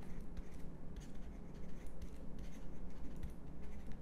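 Faint, irregular scratching and tapping of a stylus handwriting a couple of words on a tablet, over a low steady hum.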